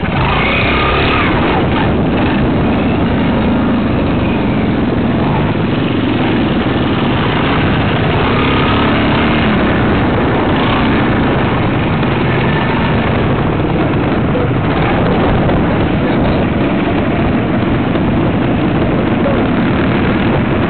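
Trials motorcycle engine running, heard from a helmet-mounted camera with a steady rumbling noise throughout.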